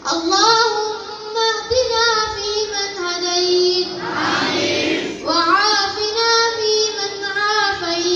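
Children's voices singing a slow melodic chant, in two long phrases with a short break about four and a half seconds in.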